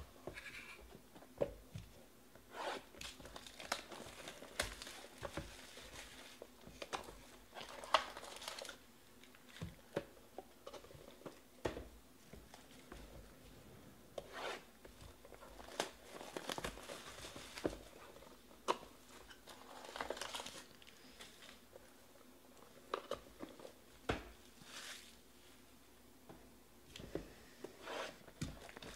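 Trading-card packs and boxes handled by hand: wrappers tearing and crinkling, and cardboard and cards tapping and sliding, in irregular short bursts with sharp clicks.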